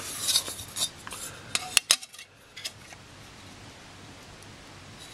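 Handling noise: a cluster of light metallic clicks and clinks with some rustling in the first two or three seconds, then only faint room background.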